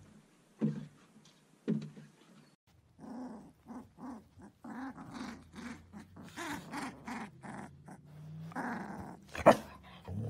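Huskies: two sharp barks about a second apart, then a quick string of short growls and whines from huskies with their puppies. One loud sharp cry comes near the end.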